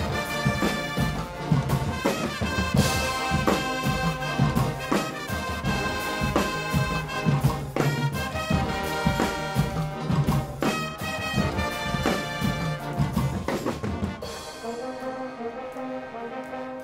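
Guggenmusik carnival band playing: trumpets, trombones and sousaphones in loud, rough unison over a drum kit with cymbals. About fourteen seconds in the drums stop and the brass carries on more softly.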